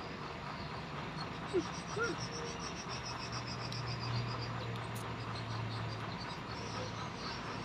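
Outdoor ambience of insects chirping in fast pulsed trills. A low steady hum runs through the middle few seconds, and two short rising calls come about two seconds in.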